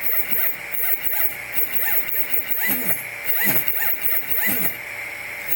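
Prusa i3 Z-axis stepper motors jogged from the LCD knob, whining in short rising-and-falling pulses about twice a second over a steady electrical hum, with the pulses stopping near the end. Turn, pause, turn, pause: the motors buzz and stutter instead of driving smoothly, a fault the owner cannot yet explain.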